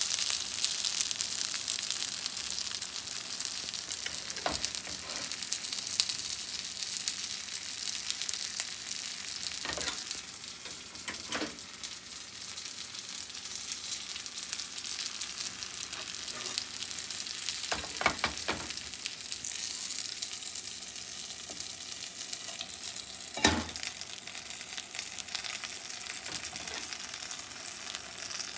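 Frozen gyoza frying in a pan with their frozen-in oil and starch, a steady sizzle that slowly dies down as the crisp lattice forms. A few short knocks break in, the loudest about two-thirds of the way through.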